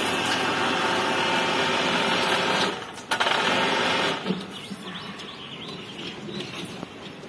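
An electric motor running with a steady hum, dipping briefly just under three seconds in, then cutting off about four seconds in. Faint light clicks and rustling follow.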